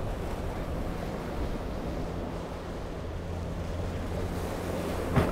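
Bayliner 185 bowrider's engine droning steadily as the boat runs through choppy water, with the rush of wash and surf and wind on the microphone. There is a single sharp knock near the end.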